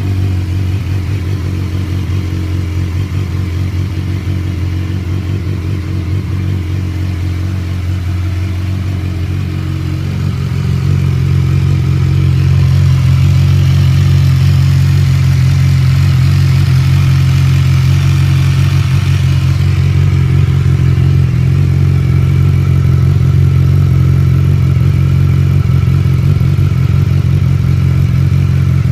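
BMW S1000XR's inline-four engine idling through an Akrapovic slip-on muffler with its baffle removed, just after starting. It runs steadily and gets louder about ten seconds in.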